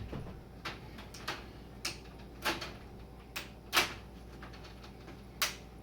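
Plastic snap clips of a Toshiba L75-B1750 laptop's screen bezel clicking loose as the bezel is pried off: about eight irregular sharp clicks, the loudest about four seconds in.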